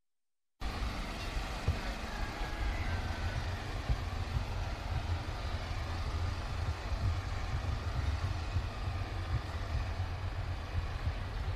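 Uneven low rumble of wind on the microphone of a bicycle-mounted camera, over faint street traffic noise. The sound cuts in suddenly about half a second in, after a short dropout of dead silence.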